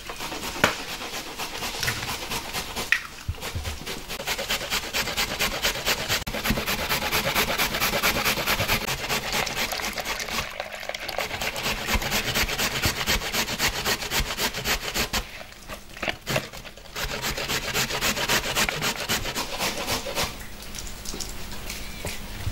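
Rapid, rhythmic scraping or rubbing strokes, many a second, typical of hand food preparation. They pause briefly twice and ease off near the end.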